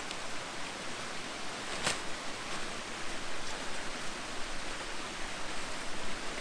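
Steady rushing outdoor background noise, with a sharp click about two seconds in and a few fainter ticks.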